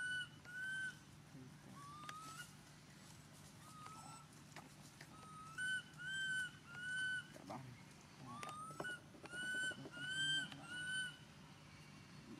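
A bird calling in short, clear whistled notes of one steady pitch, in groups of two to four, each group opened by a short rising note, with a faint steady low hum underneath.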